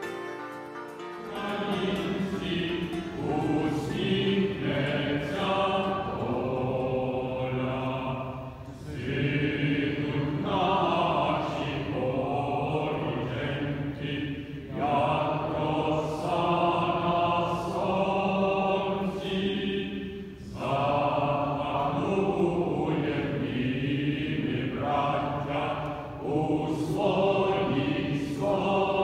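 A group of voices singing together in slow phrases a few seconds long, with short breaks between them. A guitar piece ends about a second in, just as the singing takes over.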